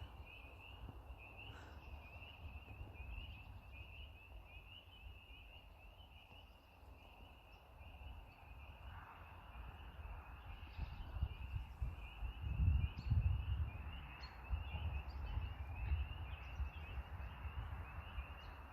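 Spring peeper chorus: many high, short, rising peeps overlapping in a steady chorus. A low rumble on the microphone runs underneath, loudest about two-thirds of the way through.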